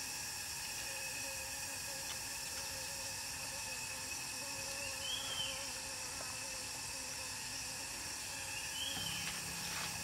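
Forest insects calling steadily at several high pitches, over an even hiss. A bird gives a short rising-and-falling chirp twice, about halfway and near the end.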